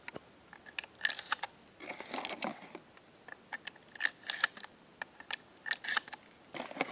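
12-gauge shells being thumbed one by one into a Remington 870 pump shotgun's tube magazine: a string of short metallic clicks and snaps, in clusters roughly a second apart.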